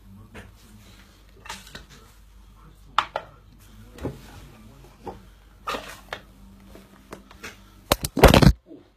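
Phone handling noise: scattered light knocks and rustles, then a loud rubbing and knocking burst about eight seconds in as the phone is covered.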